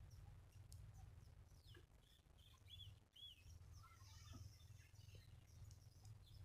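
Near silence: faint outdoor ambience over a steady low rumble, with a few faint bird chirps about two and a half to three seconds in.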